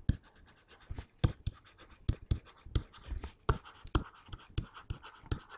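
Handwriting with a stylus on a digital writing surface: irregular taps and short scratches as words are written out.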